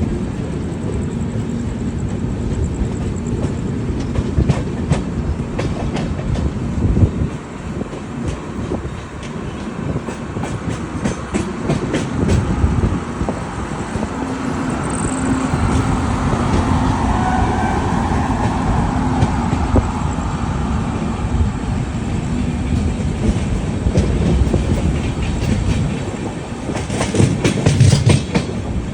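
Indian Railways passenger train running and picking up speed after departure, with a steady rumble and wheels clicking over rail joints. A steady hum comes in across the middle stretch.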